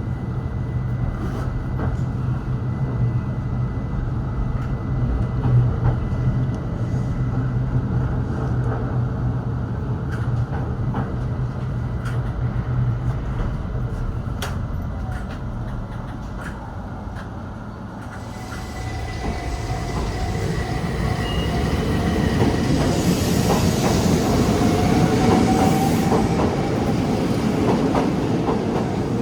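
Keihan 800 series train: a steady low hum for the first two-thirds. It then changes abruptly to the train running, with clattering wheels and a thin, slightly rising wheel squeal.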